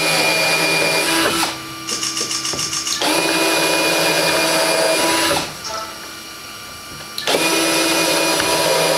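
Cordless drill running at a steady whine in three runs of about two seconds each, drilling pilot holes through a pine 1x4 board. Between the first two runs there is a brief fast ticking.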